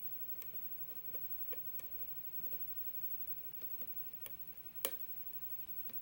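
Faint, irregular metallic clicks of a lock pick working the pin stacks of a CASSA euro cylinder lock under tension, with one sharper click nearly five seconds in.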